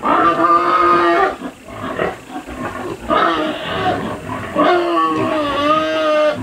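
Young pigs squealing: about four long, loud, pitched calls in a row.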